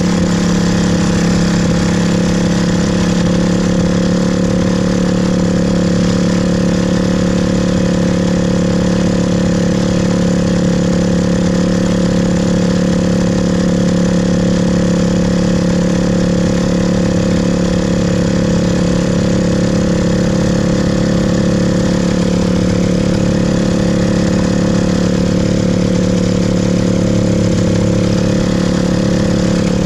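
Hirth F-23 two-stroke flat-twin engine of a Quicksilver MX Sport ultralight idling steadily at taxi power as the aircraft rolls across grass.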